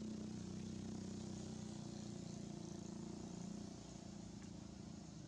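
Faint, steady low engine drone from an unseen vehicle, which fades down about three and a half seconds in.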